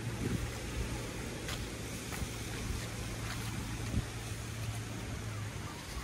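Wind and outdoor noise on the microphone with a steady low hum that cuts out near the end, and a few faint light crackles.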